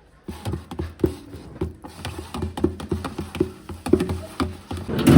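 Utensil clinking and scraping against the microwave-safe dish as the scrambled eggs are stirred, in irregular taps a few times a second, with a louder knock near the end.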